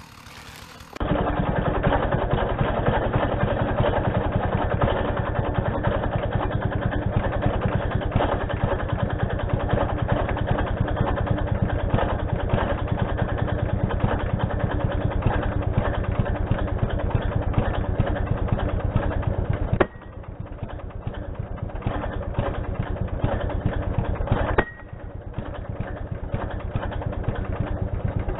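Chainsaw engine idling steadily, with two sudden drops in level about twenty and twenty-five seconds in.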